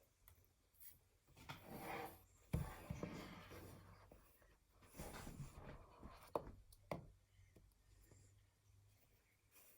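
Faint rubbing and rustling of phone packaging being handled during an unboxing, with a couple of light clicks or taps near the middle.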